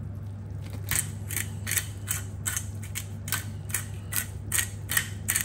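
Hand-twisted pepper mill grinding black pepper: about a dozen short, crisp ratcheting clicks, roughly three a second, starting about a second in.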